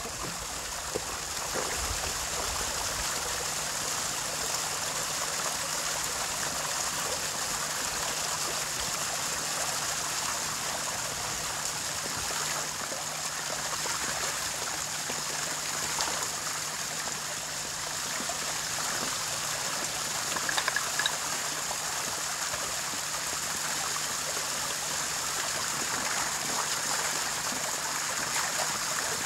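Water pumped by a 310-watt pond pump gushing from a hose and running steadily down a stacked-rock waterfall into a pond; the pump is pushing far too much water for the waterfall, so it shoots out and splashes everywhere.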